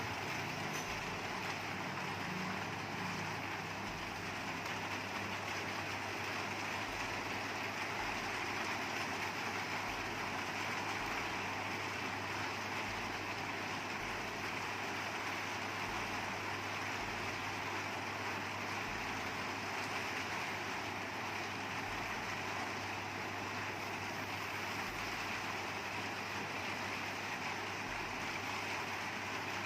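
Steady background noise: an even hiss with a constant low hum underneath, unchanging throughout.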